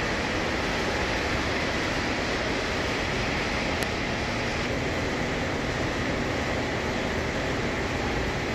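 Steady, unchanging rushing background noise of a repair shop, with one faint click about four seconds in.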